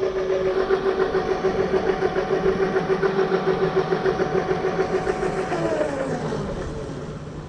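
Razor E325 electric scooter's 24 V chain-drive motor howling loudly as a steady high whine at top speed. About five and a half seconds in, the whine falls in pitch and fades as the scooter slows.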